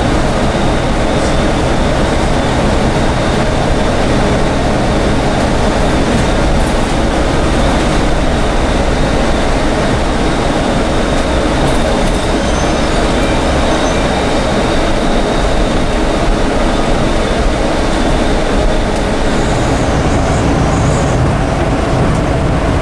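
Cabin noise inside a guided bus running along a concrete guideway: a steady rumble of engine and tyres on the track, with a thin high whine for the first half.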